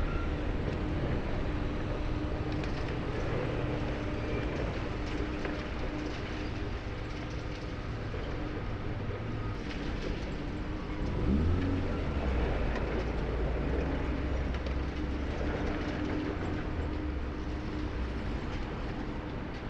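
Diesel engine of a high-reach demolition excavator running steadily, revving up briefly about eleven seconds in.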